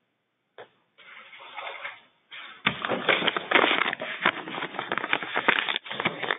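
Crackling, rustling noise over a telephone conference line, dense with sharp clicks. It starts faintly about a second in and turns loud about two and a half seconds in.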